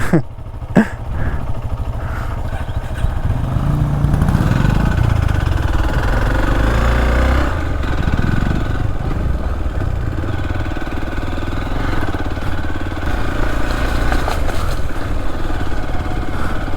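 Motorcycle engine running as the bike is ridden, its pitch rising and falling a few times.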